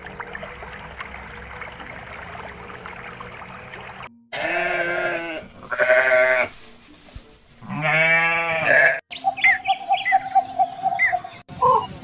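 Steady, featureless noise for about four seconds, then sheep bleating loudly three times. After about nine seconds come short, chirping bird calls.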